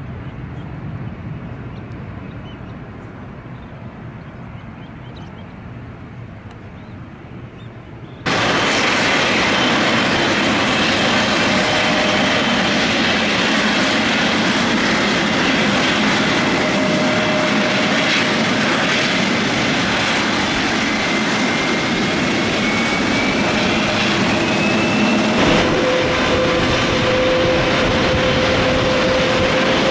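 Widebody jet airliner engines. The first part is a departing twinjet's fading rumble. After a sudden jump in level about 8 seconds in, the loud steady rush and whine of nearby jet engines follows, and the whine rises in pitch near the end.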